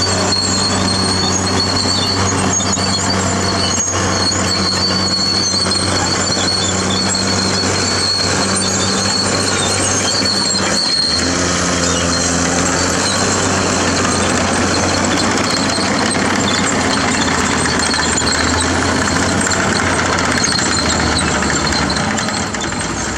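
CAT D6R bulldozer's diesel engine running steadily under the operator, with a thin high whine over its hum; about halfway through the engine note briefly dips and shifts in pitch.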